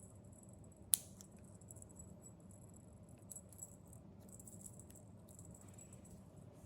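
Faint light jingling and rattling, with one sharp click about a second in.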